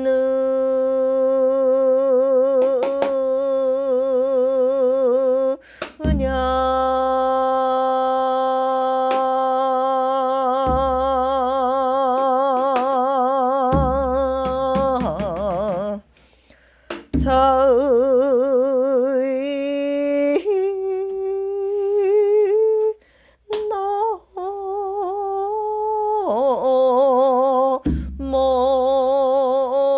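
A woman singing pyeongsijo, Korean classical sijo, solo. She holds long notes with a wide, slow wavering vibrato, slides between pitches and breaks off for short breaths now and then. A few low thumps sound beneath the voice.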